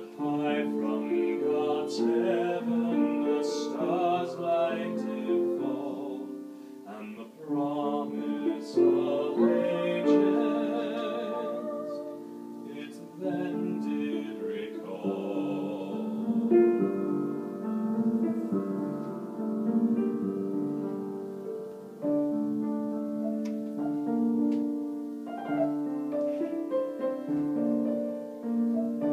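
Woman singing in a classical, operatic style with strong vibrato, accompanied by piano; the voice drops out in the second half and the piano carries on alone.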